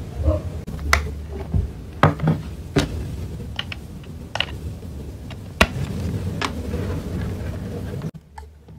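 Handling noise from a white USB power cable being laid out and plugged into a small pan-tilt CCTV camera: a series of sharp clicks and light knocks, irregularly spaced, over a low rumble.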